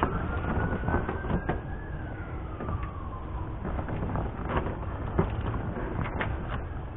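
Hands pushing a door card (interior door panel) into position on a truck door: scattered plastic clicks and knocks over a low background rumble. A faint tone rises and then falls back over the first three seconds or so.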